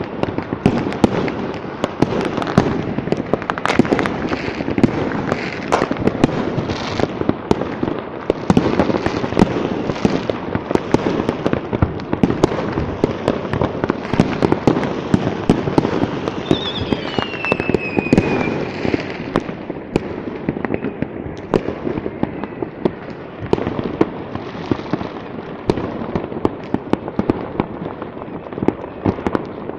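Continuous barrage of fireworks and firecrackers going off together, with countless overlapping bangs and crackles. About halfway through, a falling whistle rides over them.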